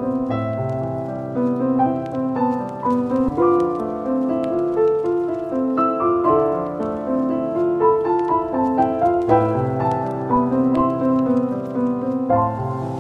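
Background piano music: a gentle piece of flowing, overlapping notes.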